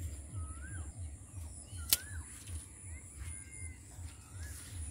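Birds calling with short whistled notes that rise and fall, about one a second, over low thumping footsteps as the camera is carried along. A single sharp click about two seconds in is the loudest sound.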